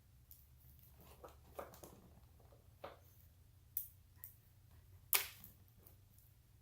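Scattered sharp clicks and snips from small hand tools working on LED light wires, six or so spread irregularly, the loudest about five seconds in, over a faint low hum.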